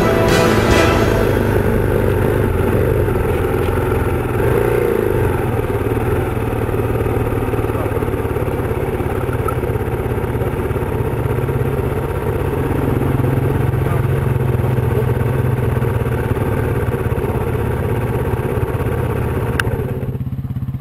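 Single-cylinder four-stroke dual-sport motorcycle engine running under way on a dirt road, heard from a bike-mounted camera with wind and road noise. The engine eases off near the end.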